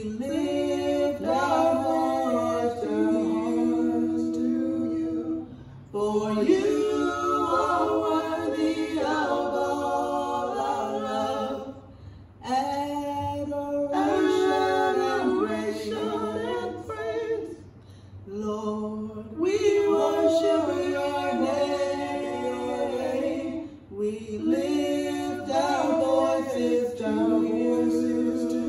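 Three voices, two men and a woman, singing a worship chorus a cappella in close harmony. The song moves in phrases of about six seconds, with a short breath between each.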